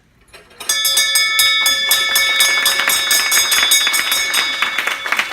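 A ship's bell struck rapidly and repeatedly from under a second in, its ringing tones building up and holding throughout. Clapping joins in near the end.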